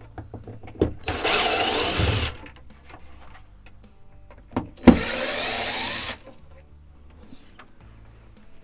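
Cordless drill-driver backing out the screws of a roof vent fan's trim ring: two short runs of about a second each, one about a second in and one about five seconds in. The second run starts right after a sharp knock, and small clicks and handling noises fall between the runs.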